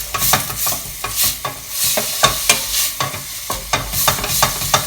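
A spoon or spatula stirring chopped vegetables frying in a pan, with irregular scrapes and knocks against the pan over a steady sizzle.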